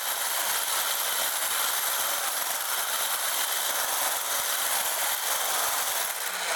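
Electric mixer running steadily, its beaters whipping chocolate mousse mix and milk in a bowl until it thickens.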